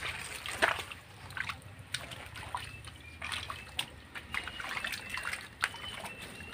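Small splashes, trickles and drips of water as bare feet and wet hands move through a shallow muddy drain, a scatter of short uneven splashes, with a faint thin high whistle in the second half.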